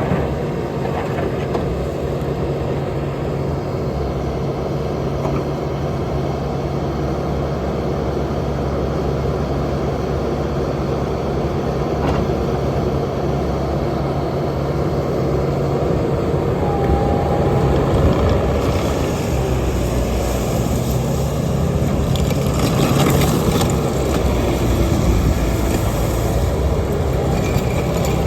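Bobcat T740 skid steer loader's diesel engine running steadily. About two-thirds of the way through it grows louder, with more high-pitched noise on top.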